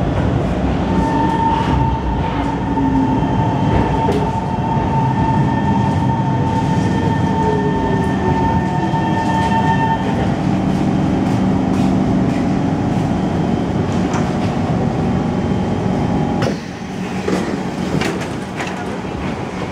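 SMRT C151 metro train heard from inside the car, slowing into an underground station: steady running rumble with a high whine held for about the first half, and a lower tone falling in pitch as it brakes. Near the end the noise drops as the train comes to a stop, with a few sharp knocks.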